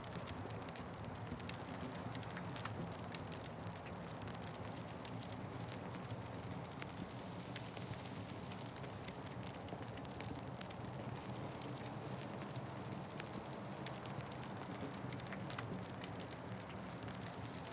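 Wood fire crackling steadily: a soft, even rumble of flames with many small, irregular crackles and pops throughout.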